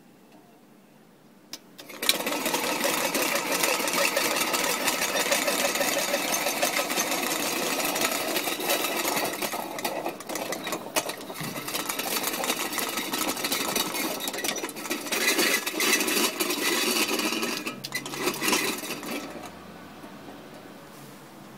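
Small battery-powered hobby motor running a homemade soda-can car, whirring and rattling as it turns the tin-can drive wheel. It starts suddenly about two seconds in and stops near the end.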